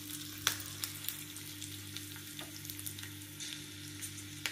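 Green chillies, coriander and curry leaves sizzling in hot oil in a small tadka pan, with scattered sharp crackles. The flame has just been turned off, and the sizzle eases slightly over a steady low hum.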